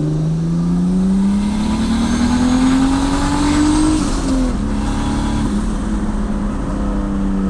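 Turbocharged BMW E46 engine accelerating hard in a test pull, its pitch climbing steadily for about four seconds. About four seconds in the pitch falls back sharply, then holds steady.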